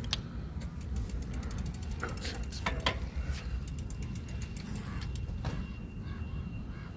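Bicycle freewheel ticking rapidly for a couple of seconds as the bike coasts, over a steady low rumble of riding.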